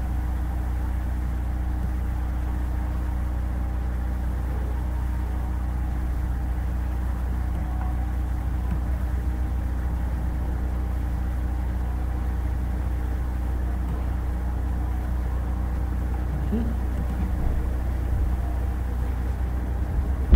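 Steady low hum with a faint even hiss underneath and nothing else happening: the background noise of a desk microphone recording a computer screen tutorial.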